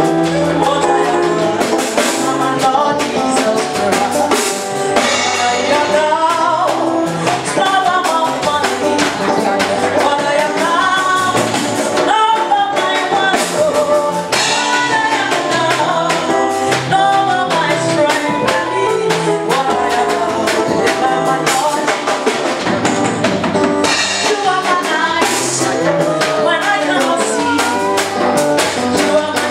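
Music with singing over a drum kit keeping a steady beat.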